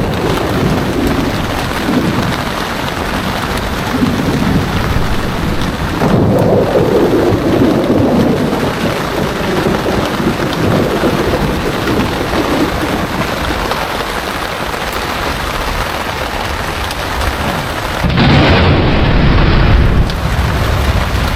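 Heavy rain pouring steadily in a thunderstorm, with thunder rumbling in low rolls, the biggest starting suddenly about six seconds in and fading over a few seconds. Near the end there is a louder, duller stretch of about two seconds.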